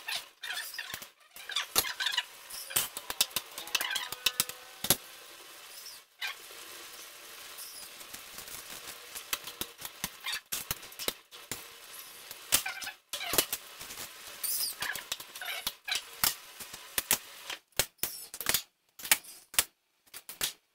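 Stir-frying at a gas stove: a spatula clacking and scraping against the pan in irregular knocks, with patches of sizzling. Birds call in the background, with chirps about 14 seconds in.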